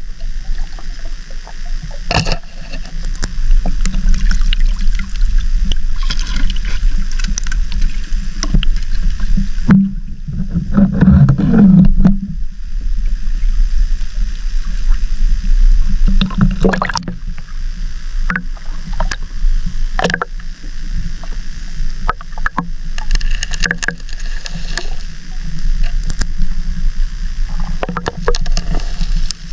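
Muffled underwater sound picked up through an action camera's waterproof housing: a heavy low rumble of moving water, with scattered sharp clicks and knocks. A louder low surge comes about ten seconds in.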